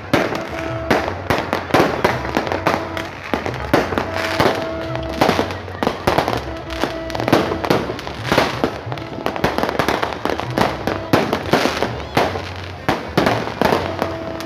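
Fireworks going off in a dense run of sharp, irregular bangs and crackles, with music playing underneath.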